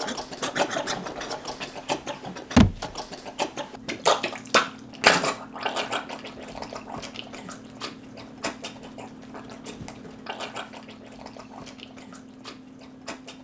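A person falls onto a tiled floor with a heavy thud about two and a half seconds in, followed by scuffling and irregular knocks as he thrashes in a staged seizure. A steady low hum runs underneath.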